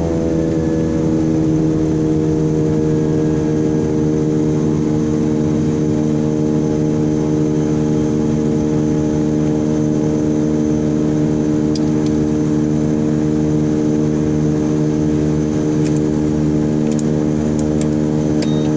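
Beechcraft King Air 90's PT6A turboprop engines running at idle, heard inside the cockpit: a steady engine-and-propeller drone whose pitch slides down and settles about a second in, then holds. A few light clicks near the end.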